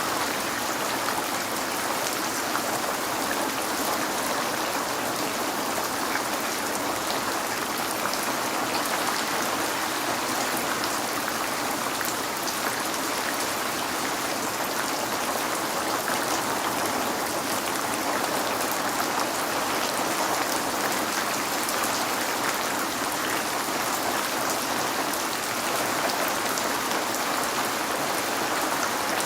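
Steady rain on window glass: an even hiss of falling rain with many small drop taps, unchanging throughout.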